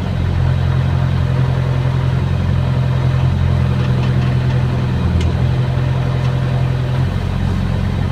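Hydraulic excavator's diesel engine running steadily at idle, heard from inside the operator's cab as an even low hum.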